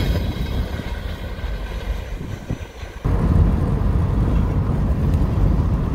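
Low rumble of freight hopper cars rolling past on the rails, fading over the first few seconds. About three seconds in it cuts suddenly to the louder, steady road rumble of a car driving at about 40 mph, heard from inside the cabin.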